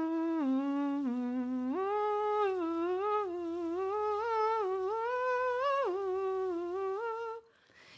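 A woman singing a melodic phrase through a narrow drinking straw (straw phonation, a semi-occluded vocal exercise), giving a continuous hum-like tone that steps up and down in pitch. It stops shortly before the end.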